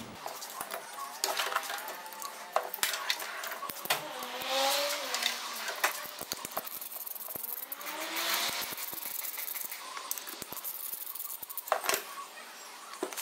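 Metal clicks and clinks of hand tools working on the bolts of an electric power steering column's control unit as it is unbolted and removed, with squeaks about four and eight seconds in.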